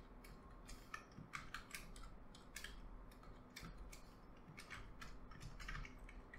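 Faint computer keyboard keystrokes: single clicks and short runs of taps at an irregular pace, as a line of code is selected and pasted.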